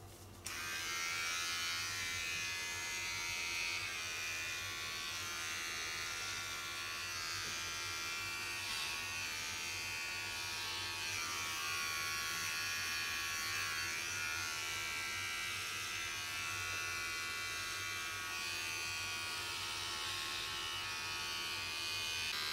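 Electric pet hair clippers starting about half a second in, then buzzing steadily as they trim a dog's fur.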